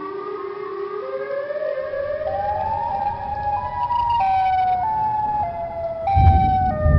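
Horror suspense sound effect: several held, siren-like tones climb together in steps, then step back down a little after about four seconds. A low rumble builds underneath and swells into a deep boom near the end.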